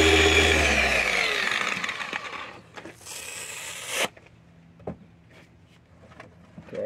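A handheld electric polisher's motor spinning down after a cutting pass on a headlight lens: its whine drops in pitch and fades out about a second and a half in. A short hiss comes near the middle and cuts off sharply, then a few light knocks and taps.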